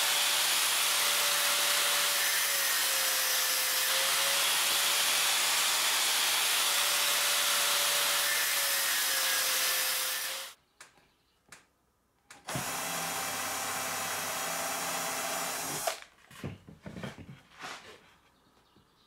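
Cordless drill drilling into wooden boards: one long steady run that stops about ten seconds in, then a second, shorter run a couple of seconds later, followed by a few light clicks and knocks.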